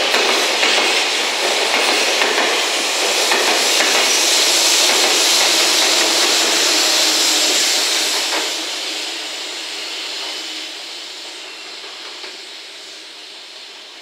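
A long freight train of container wagons passes at speed, its wheels running loud and steady over the rails. About eight seconds in, the EF210 electric banking locomotive at the rear goes by, and then the noise fades as the train pulls away.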